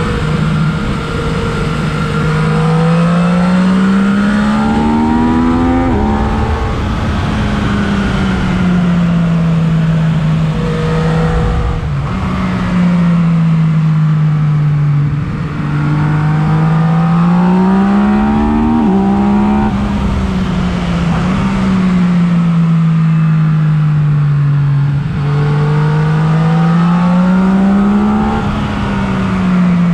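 Yamaha MT-09 three-cylinder motorcycle engine through an Akrapovic exhaust, on the move. Its note climbs in pitch under acceleration, drops suddenly twice, and sinks slowly between the climbs as the bike eases off. A third climb comes near the end.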